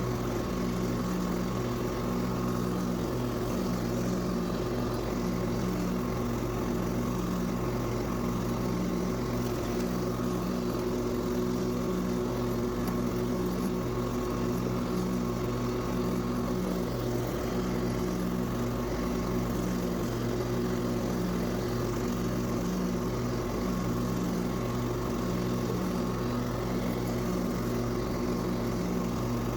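Husqvarna lawn mower engine running steadily under cutting load, with an even, unchanging note.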